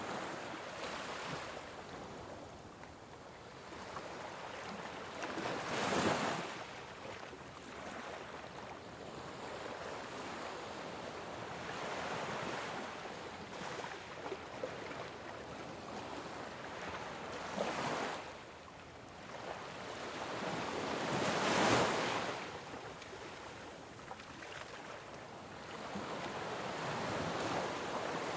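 Ocean waves washing onto a shore: a steady surf hiss that swells into louder breaking waves about a fifth of the way in, again around two-thirds, and most strongly about three-quarters of the way in.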